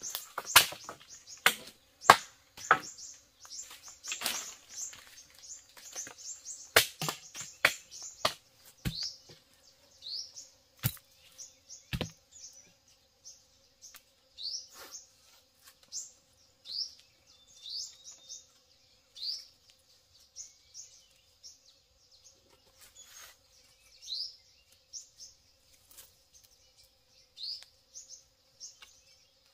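Sharp knocks or strikes, many in quick succession for about the first twelve seconds and then only now and then, over a bird repeating a short, high, rising chirp about once a second.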